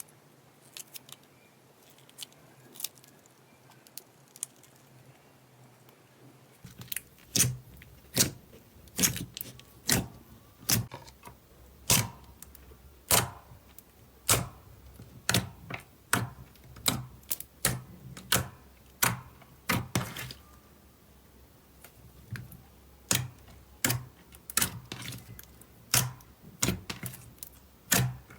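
Slime being squeezed and pressed by hand, giving sharp clicking pops. They are faint and sparse at first, then louder at about one to two a second from about seven seconds in.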